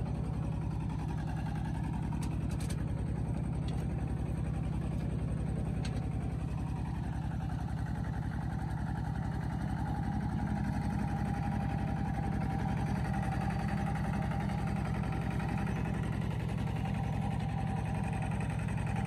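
An engine running steadily, a low even drone with a faint higher whine that strengthens about halfway through.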